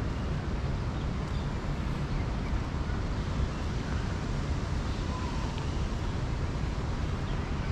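Steady low rumble of outdoor background noise, even throughout with no distinct events standing out.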